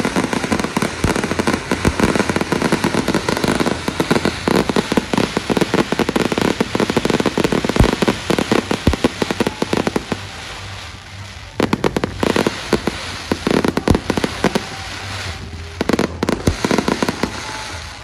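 Aerial fireworks bursting in dense, rapid volleys of bangs and crackles. About ten seconds in the volleys thin out briefly, then resume in shorter clusters of crackling bursts.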